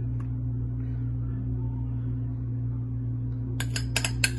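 Steady low hum, with a quick run of four or five sharp clicks near the end.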